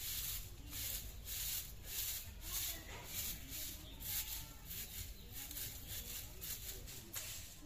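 Soft grass hand broom sweeping dust off a bare concrete floor: a steady run of brushing swishes at about three strokes a second.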